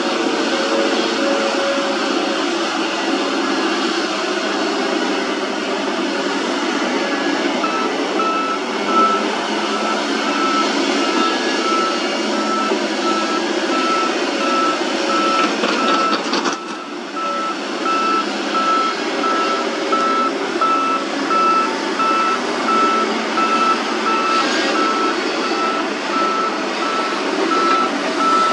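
Crawler excavators working in mud, diesel engine and hydraulics running steadily. About a quarter of the way in a backup alarm starts beeping at an even pace and keeps on.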